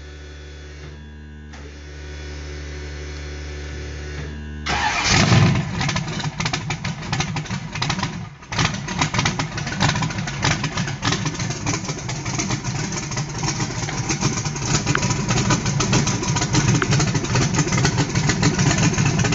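Small-block V8 on E85 fed by a blow-through CSU carburetor, cold-starting with no choke. After a few seconds of steady hum it fires about five seconds in, stumbles briefly a few seconds later, then keeps running with an uneven idle.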